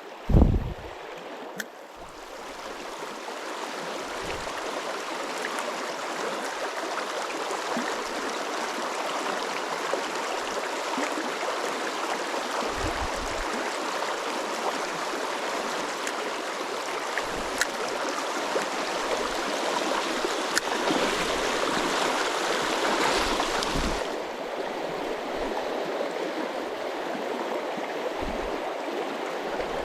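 Small river rushing steadily over rocks. A brief loud thump just after the start and a few softer low knocks later on.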